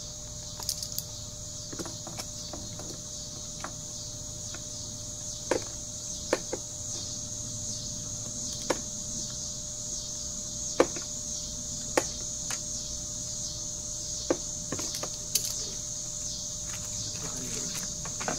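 A steady outdoor chorus of insects, with scattered sharp clicks and knocks from hands and parts at an Evinrude outboard's fuel filter as it is taken off and swapped.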